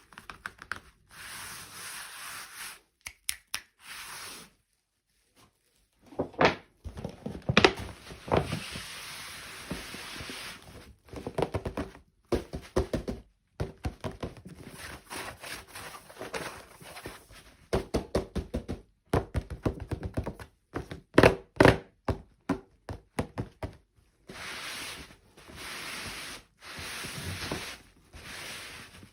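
Close-up handling of plastic toys and packaging: many small knocks, clicks and thunks, with stretches of rustling.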